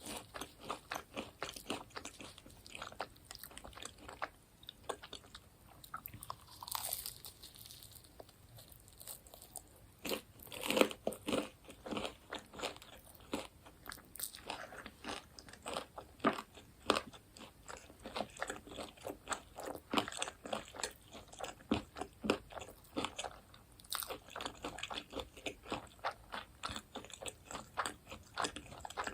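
Close-miked biting and chewing of crunchy fried food, dense crackly crunches, thinner for a few seconds and then strongest about ten seconds in.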